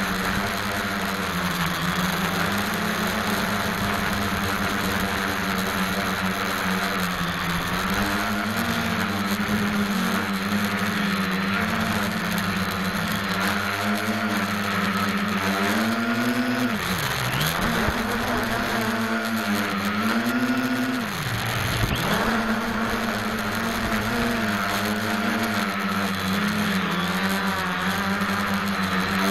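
SK450 quadcopter's electric motors and propellers whirring steadily in flight, heard close up from the craft itself, the pitch wavering with throttle. Twice, past halfway, the pitch drops sharply and climbs back.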